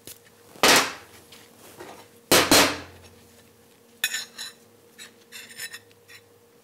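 Soft brass-bristle brush scrubbed across a second-cut chrome file to clear filings from its teeth: two loud scraping strokes in the first three seconds, then quicker, lighter rasping strokes.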